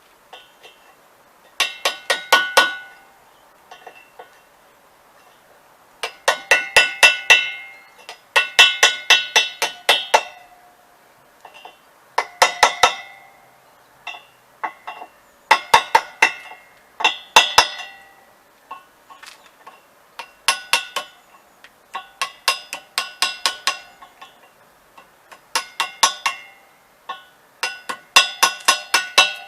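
A hammer tapping an old iron wheel in about ten quick bursts of several blows each. Every blow rings the metal at the same pitches.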